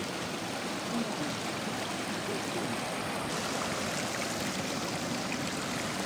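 Shallow creek rapids running over rocks: a steady rush of flowing water.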